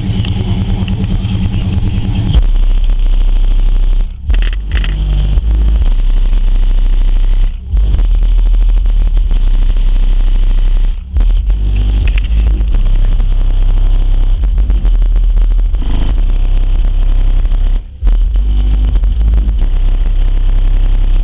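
Car-audio bass music played very loud through four Pioneer TS-W309-D4 12-inch subwoofers in a ported box tuned to 35 Hz. The bass notes drop lower about two seconds in and break off briefly every few seconds.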